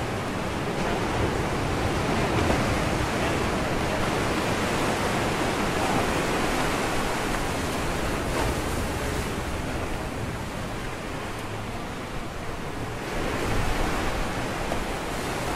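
Ocean surf breaking and washing against a rocky shoreline, a steady rush of waves that eases a little after about ten seconds and swells again as a wave breaks near the end.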